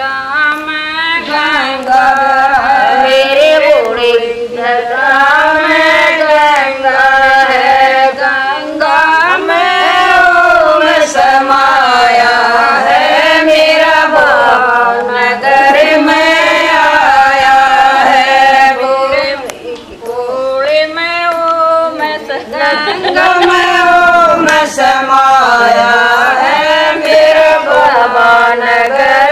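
Women singing a Haryanvi Shiva bhajan (devotional hymn) in a chant-like melody, with a brief pause about two-thirds of the way through.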